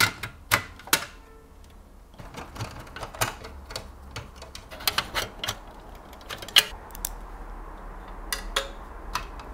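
A screwdriver driving screws by hand into the steel drive bracket of a small computer case: irregular sharp clicks and taps of metal on metal, several in quick succession at the start and a louder one past the middle.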